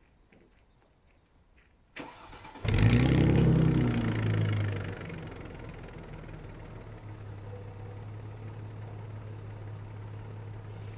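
Mercedes-Benz ML's engine cranked by the starter about two seconds in, catching a moment later with a loud flare of revs, then settling to a steady idle heard at the tailpipes.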